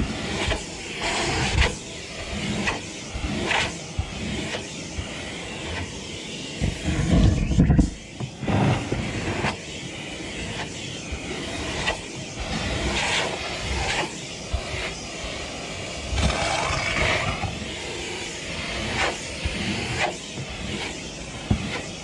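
Gas-station vacuum running as its hose nozzle is worked over the car's trunk carpet, the suction noise rising and falling in irregular bursts, with a loud low rumble about seven seconds in.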